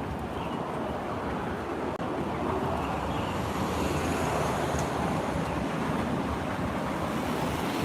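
Steady street traffic noise mixed with wind on the phone's microphone.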